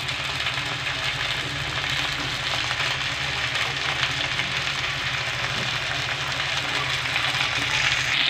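Two tilapia frying in mustard oil in a metal pan: a steady sizzle as the second side browns, over a steady low hum.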